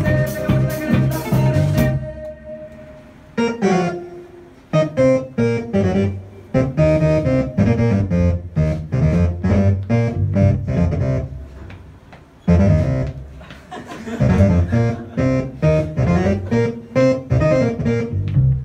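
Live rock band playing an instrumental passage on drums, bass guitar and keyboards. About two seconds in, the full band with cymbals breaks off, leaving one held keyboard note, then comes back in short, choppy stop-start stabs.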